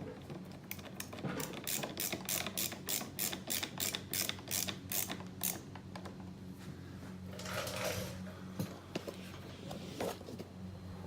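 Screwdriver ratchet clicking rapidly and evenly, about five clicks a second for roughly five seconds, as small T10 screws are driven in. It is followed by a brief rustle of handling.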